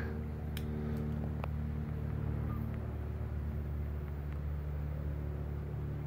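A steady machine hum with an even stack of overtones, like an electric motor or compressor running, with a few faint clicks in the first second and a half.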